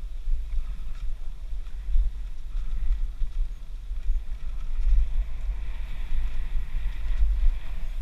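Downhill mountain bike's knobby tyres rolling fast over a dirt forest trail, buried under a heavy, gusting wind rumble on the action-camera microphone.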